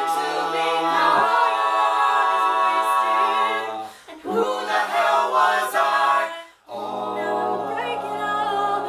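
A mixed a cappella group of men's and women's voices singing sustained chords without instruments. The voices stop briefly about two-thirds of the way through, then come back in on a new chord with a low bass line underneath.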